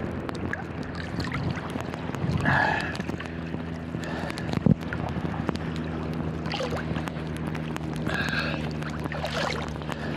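Choppy seawater sloshing and splashing around a phone sealed in a plastic bag at water level, with many small clicks and crackles from the bag. A steady low hum joins about three seconds in.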